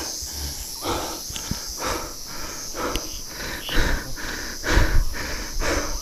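A tree climber breathing hard close to the microphone, in repeated rasping breaths, over a steady high drone of jungle insects, with a few low bumps near the end.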